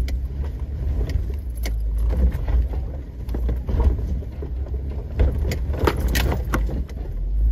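Off-road vehicle crawling slowly over a rocky trail: a steady low engine rumble with scattered clicks and rattles.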